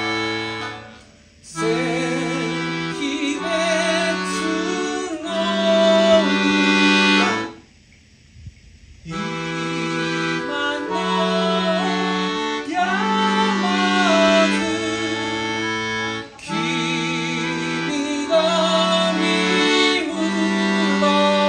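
Piano accordion playing slow, sustained chords and melody in phrases, joined by a bowed long-necked string instrument with a wavering melody line. The music breaks off briefly about a second in, and again for about a second and a half near the middle.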